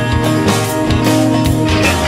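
Background music: guitar-led rock over a steady beat.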